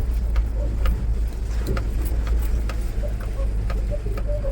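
Mahindra Bolero Pickup's diesel engine running steadily with a low rumble while it drives over a rough off-road track. Frequent short knocks and rattles come through over the engine noise.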